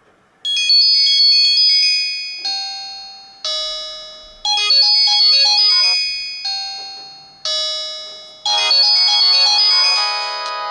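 A Siemens Xelibri polyphonic ringtone playing through a Samsung GT-E2121B phone's loudspeaker, starting about half a second in. It is a bright electronic melody of decaying chimes and quick notes, and its phrase repeats every four seconds. Near the end it changes to a steadier, fuller sound.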